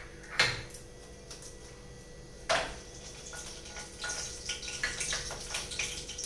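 Whole spices, bay leaf and cinnamon, going into hot oil in a kadai for tempering: two sharp knocks about two seconds apart, then the oil sizzling and crackling, thicker from about three and a half seconds in.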